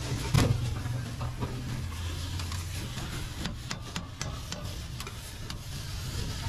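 Metal scraper scraping and knocking on a flat steel griddle as chopped shawarma meat is pushed across it, with a sharp knock about half a second in and a run of clicks a little past three seconds. A steady low hum runs underneath.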